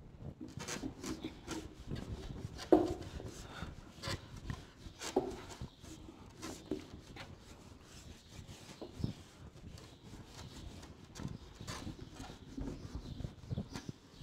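A board duster wiping marker writing off a whiteboard: irregular scrubbing strokes, with a few light knocks in between.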